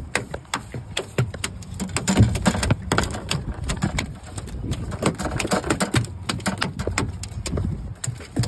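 A hammerhead shark flopping on a boat deck: rapid, irregular slaps and knocks of its body and tail against the deck.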